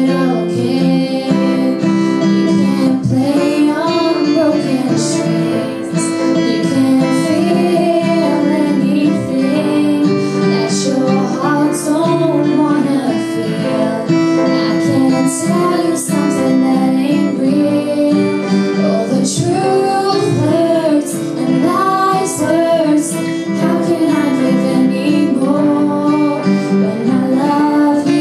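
Strummed acoustic guitar and piano accompanying a young female singer's voice.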